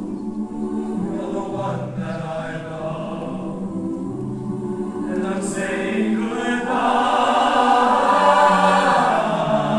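Mixed-voice choir singing a slow song in sustained harmony, swelling louder about seven seconds in.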